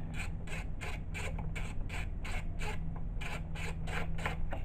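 Socket ratchet undoing a cover bolt on a GY6 scooter engine, a rasping burst of clicks on each return stroke, about three or four a second with a brief pause past the middle, over a steady low hum.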